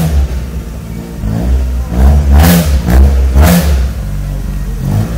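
Opel Kadett GSi 16V's 16-valve four-cylinder engine being blipped at idle: about four sharp rises in revs through the exhaust, each dropping back to a steady idle.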